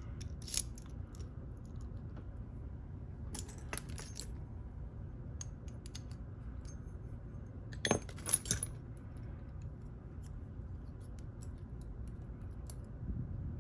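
Small metal lock parts and picking tools clinking and clicking against each other in a few brief, light bursts. The loudest cluster comes about eight seconds in, over faint room noise.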